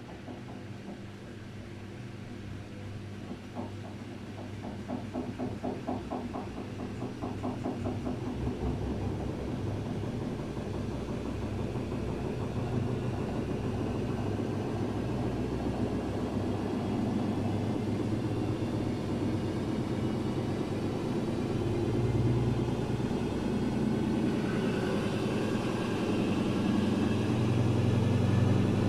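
Daewoo DWD-FT1013 washing machine drum speeding up into its 800 rpm spin with an unbalanced load. A rhythmic thumping quickens in the first several seconds, then the noise builds steadily, with a rising motor whine joining near the end.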